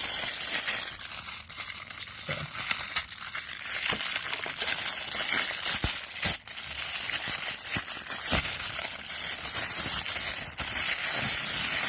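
Plastic packaging crinkling and rustling, with scattered short knocks and clicks, as a power adapter is handled and unpacked.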